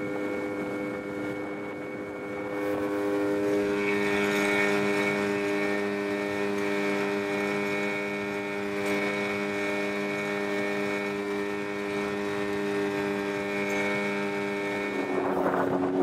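Yamaha 15 hp Enduro two-stroke outboard motor running at a steady throttle, driving an inflatable dinghy. Near the end its pitch dips slightly and a louder rushing noise comes in.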